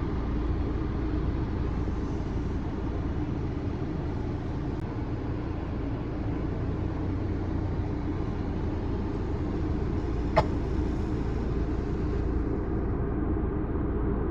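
A car driving, a steady low rumble of road and engine noise, with one short sharp click about ten seconds in.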